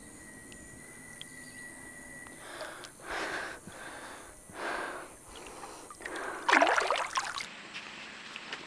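A person breathing hard: two long breaths, then a sharper, louder gasp.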